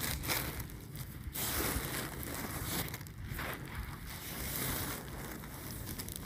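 Wind buffeting a phone's microphone: a steady low rumble with recurring gusts of hiss.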